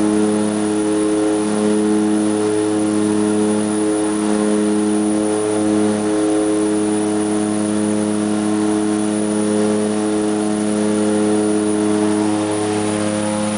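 A de Havilland Canada DHC-6 Twin Otter's two PT6A turboprop engines and propellers running at climb power just after take-off, heard from inside the cabin. Steady propeller drone with several pitched tones; the lowest tone pulses about once a second during the first half, then holds steady.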